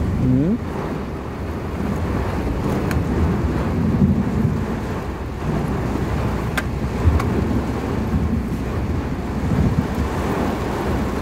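Steady rush of heavy rain and storm wind, with wind buffeting the microphone and a low rumble of road traffic underneath.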